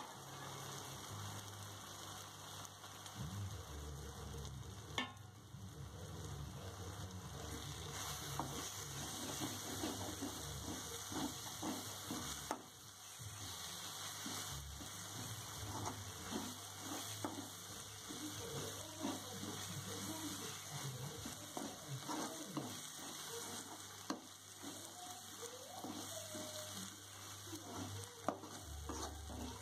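Steel spoon stirring and scraping an onion-tomato masala around a metal kadai, with a low sizzle of frying. There is one sharp tap about five seconds in.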